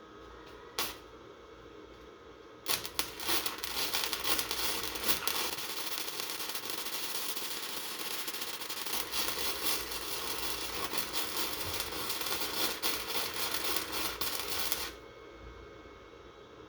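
Arc welding: a dense, steady crackle of the welding arc runs for about twelve seconds, starting a few seconds in and cutting off suddenly near the end. A single short click comes about a second in.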